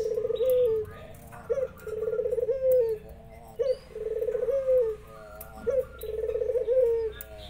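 Puter dove cooing in a repeated phrase: a short rising note, then a long rolling, trembling coo that drops at the end, four times about two seconds apart. Faint higher chirps from other birds come between the coos.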